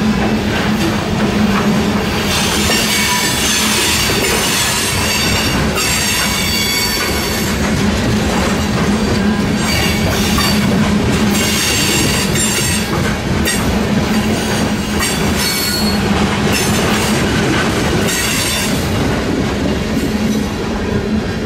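Freight train's ballast hopper cars rolling past close by with a steady rumble of wheels on rail. High-pitched wheel squeal comes and goes from about two seconds in.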